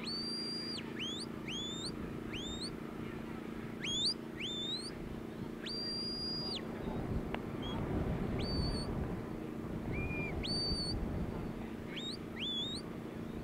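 A sheepdog handler's whistle commands to the working dog: a series of high, clear whistles, some held as level notes of about half a second to a second, others short and flicking upward, spaced through the whole stretch. Under them run a low steady hum and some wind rumble.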